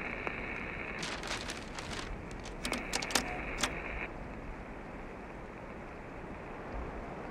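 Field radio handset giving off a thin band of static hiss broken by irregular crackling clicks: an open channel with no reply. About four seconds in the static cuts off, leaving only a faint steady hiss.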